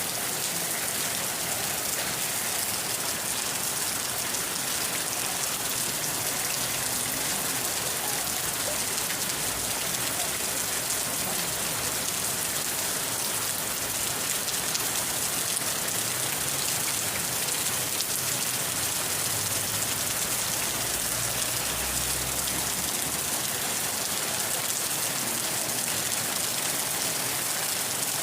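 Steady rain falling, an even hiss of many drops with a faint low rumble now and then.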